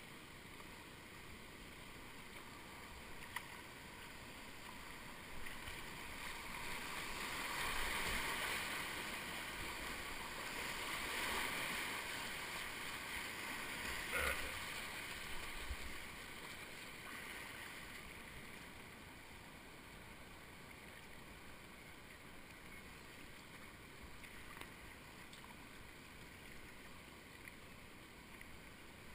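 Rushing river water around a whitewater kayak running a rapid, with water splashing over the bow. It swells from about six seconds in to its loudest with a sharp splash about fourteen seconds in, then eases to a quieter steady flow as the boat reaches calm water.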